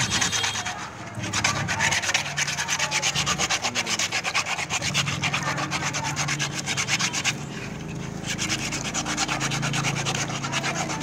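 Fine wet sandpaper rubbed by hand in quick back-and-forth strokes over an etched copper plate, a fast, even scratching that polishes the raised etched image to a shine. The strokes ease for a moment about two-thirds of the way through, then pick up again.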